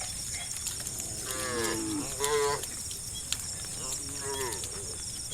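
Cows mooing: three separate moos, the first and last falling in pitch, the middle one the loudest.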